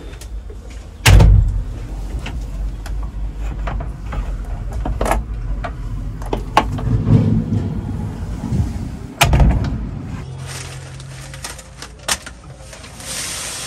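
Two loud, heavy thuds about eight seconds apart, with scattered clicks and knocks between them over a low rumble that stops about ten seconds in.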